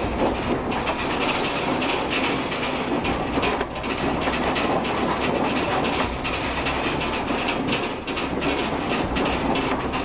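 A house shaking in an earthquake: a steady rumble with dense rattling, clattering and knocking of the building, furniture and fittings.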